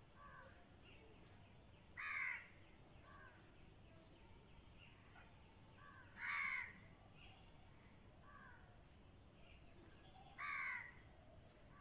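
A crow cawing three times, about four seconds apart, each caw short and harsh, with fainter bird calls in between.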